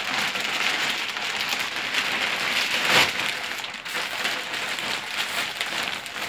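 Thin black plastic bag rustling and crinkling as hands handle it and gather it at the top, a continuous crackly rustle with a louder crackle about three seconds in.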